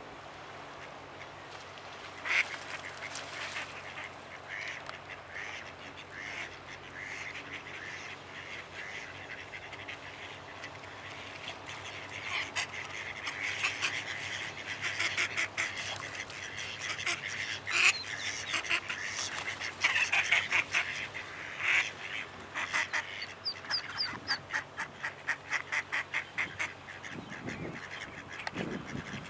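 Mallard ducks quacking: scattered calls at first, then quick runs of short quacks that grow busier and louder from about halfway through.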